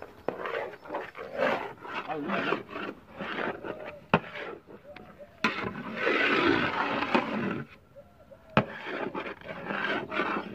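A long metal ladle scraping and stirring thick semolina halwa in a large aluminium pot, with a few sharp knocks of the ladle against the pot.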